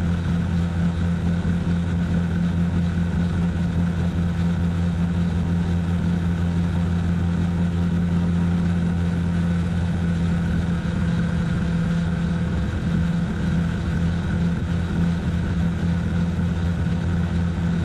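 Hirobo RC model helicopter in flight, heard from its own onboard camera: the steady, loud drone of its rotor and power plant, wavering slightly about eleven seconds in.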